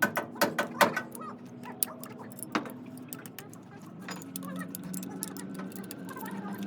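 Metal tools and engine parts clinking: a quick run of sharp clicks, about four a second, that stops about a second in. Scattered faint clinks follow, then a low steady hum from about four seconds in.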